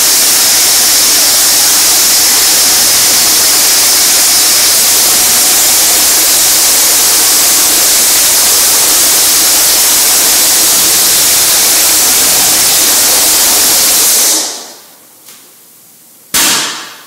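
Concrete saw cutting: a loud, steady, hissing noise that dies away about fourteen seconds in. A single short, sharp knock follows near the end.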